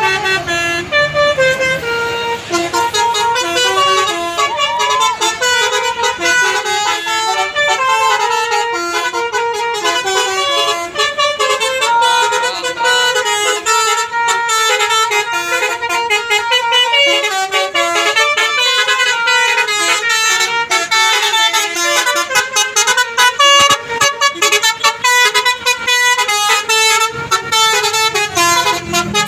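A bus's 'telolet basuri' multi-trumpet musical horn playing a fast melody without pause, its notes changing several times a second, with several tones sounding together.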